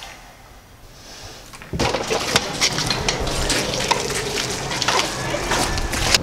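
Quiet room tone, then about two seconds in a sudden switch to busy coffee-shop clatter: dishes and cups clinking over a steady background noise.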